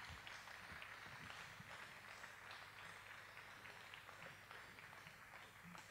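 Near silence: faint hiss with many soft, scattered clicks.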